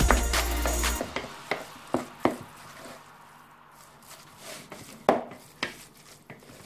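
Background music for about the first second, then a wooden spoon stirring cooked minced meat and grated kashkaval cheese in a plastic bowl, with scattered sharp knocks of the spoon against the bowl, the loudest about five seconds in.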